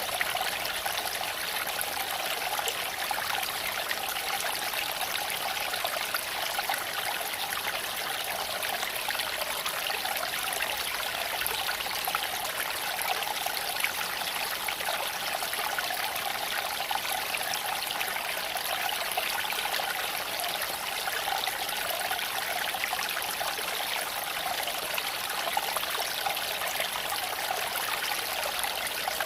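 Small creek flowing over stones: a steady, even rush and trickle of water.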